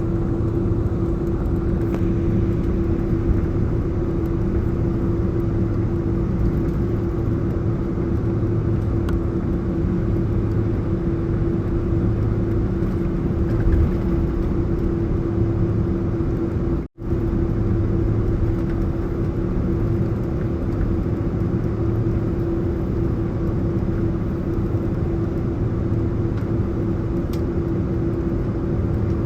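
Airliner cabin noise from a window seat: the jet engines and rushing air give a steady drone with a constant mid-pitched hum over a low rumble. About two-thirds of the way through, the sound drops out for a split second.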